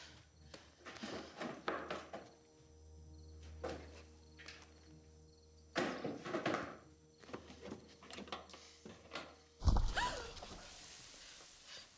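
Sound-effects track of metal tools and parts clattering and knocking as shelves are searched, over a low steady music drone. Just before the end comes a heavy thud with a falling squeal as an old Jeep is shoved into motion.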